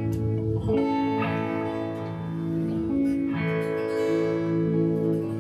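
String instruments playing held chords that change twice, about a second in and again past the three-second mark.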